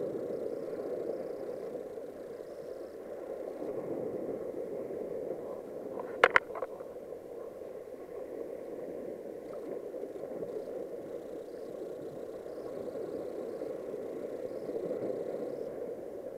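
Small waves washing and lapping over a rocky shoreline, a steady wash that rises and falls gently, with two or three sharp clicks a little past the middle.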